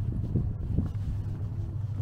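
Wind buffeting the microphone as a low rumble, with a faint engine hum underneath.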